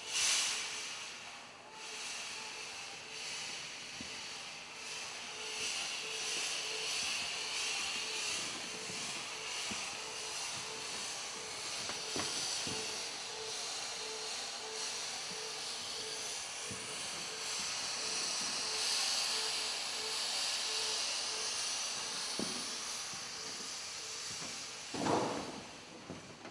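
Fog machine hissing steadily as it jets haze, with a faint tone beneath it pulsing about twice a second. A loud, dull thump comes near the end.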